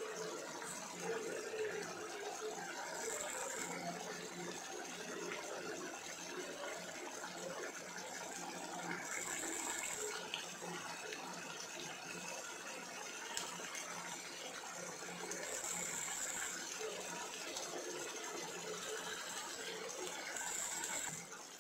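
Steady rushing, simmering noise of a pan of potato-and-tamarind chaat mixture cooking on a gas stove.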